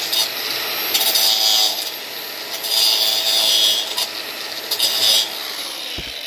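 Cordless angle grinder running and cutting into a buried drain pipe to widen an opening. The grinding gets harsher in three bursts, about one, three and five seconds in.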